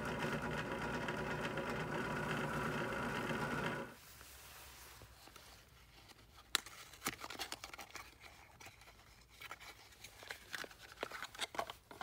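Benchtop drill press running a buffing wheel charged with jeweler's rouge, polishing a steel nail setter: a steady motor hum that stops abruptly about four seconds in. After it come scattered clicks and rustles of a cardboard box and a tube of metal polish being handled.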